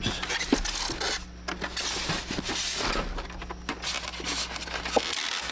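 Close handling noise of a small plastic toy tank and its packaging being turned over and rubbed, with scattered light clicks and scrapes.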